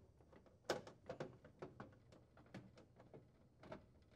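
Faint, irregular clicks and taps of a nut driver turning screws into a refrigerator's plastic water reservoir access panel, the loudest a little under a second in.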